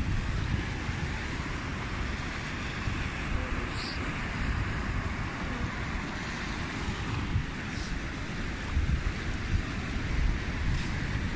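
Steady wash of sea surf with wind buffeting the microphone in uneven gusts.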